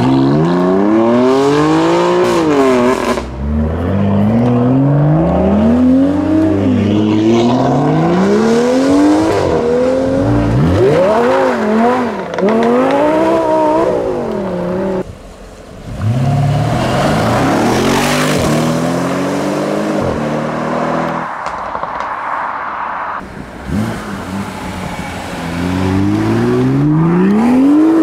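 Sports car engines accelerating hard through the gears as several cars pull away one after another, each gear a climbing note that drops at the shift. A BMW M4 sets off at the start, and a BMW M2 is pulling away near the end.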